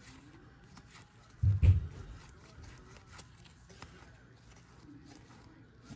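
Trading cards being handled, with faint scattered clicks and rustles. About one and a half seconds in comes a single loud low thump.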